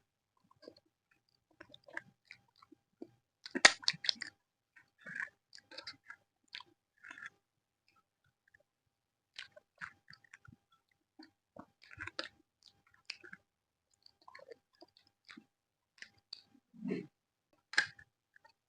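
A person chewing and smacking on mouthfuls of aloo methi paratha: irregular wet mouth clicks and smacks, loudest about four seconds in, with a short lull near the middle.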